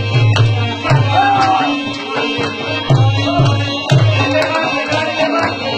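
Pashto folk music for the attan dance: a steady, fast drum beat of about three strokes a second with a melody running over it.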